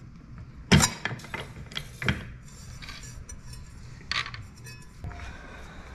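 Sheet steel clanking and clinking in a hand-lever bench shear as a round disc is cut free and handled: one sharp metallic clank about a second in, then a few lighter clinks, with another near the end.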